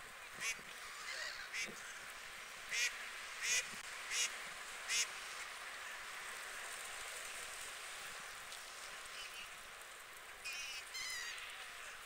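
Water birds calling: a quick series of about seven short, sharp, high calls over the first five seconds, then a few wavering calls near the end, over a steady outdoor hiss.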